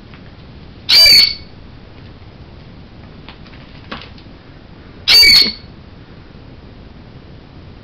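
A parrot screaming twice, two loud calls about four seconds apart, each about half a second long.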